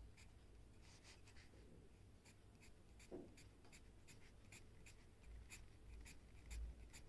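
A pencil scratching faintly on paper in short, repeated hatching strokes, about two a second, shading in a section of a drawing.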